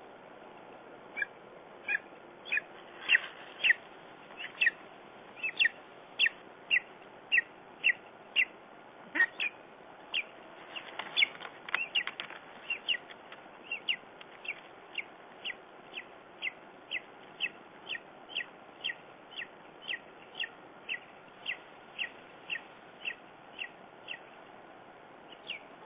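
Lesser spotted eagle calling: a long run of short, sharp, high-pitched yelps at about two a second, with a denser, overlapping flurry of notes about halfway through.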